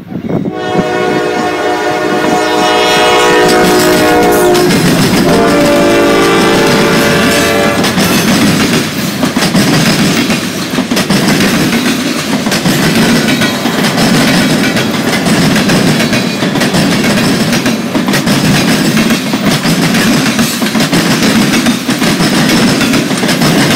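Freight train locomotive horn sounding a long chord whose pitch drops about four seconds in as the locomotive passes. It ends about eight seconds in, leaving the freight cars running past with a steady rush of wheel noise and rapid clicking over the rail joints.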